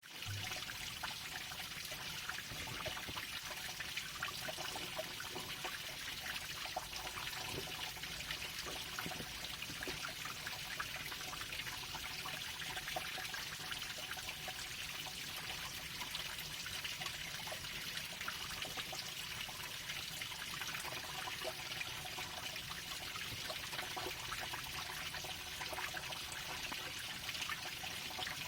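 Waterfall: water falling and splashing in a steady, unbroken rush with fine crackling spatter.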